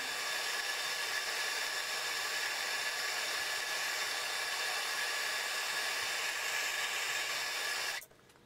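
A steady hiss of rushing air with a faint high whine, switched on and cut off abruptly about eight seconds in.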